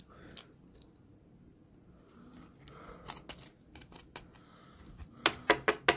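Trading cards in rigid plastic top loaders handled by hand: a few light clicks about three seconds in, then a quick run of sharper plastic clicks and taps near the end.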